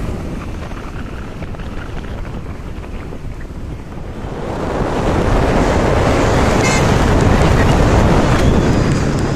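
Wind buffeting the microphone over the rumble of traffic, recorded from a vehicle moving along a city road. The rushing noise grows louder about halfway through and stops abruptly at a cut.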